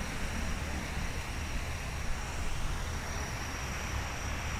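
Steady outdoor city ambience: a low rumble of distant traffic, with a thin, steady high tone above it that grows a little stronger about three seconds in.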